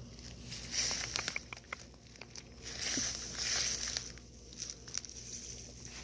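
Crinkling and rustling: a plastic water bottle handled close to the microphone and tall grass brushing, in bursts about a second in and again from about two and a half to four seconds.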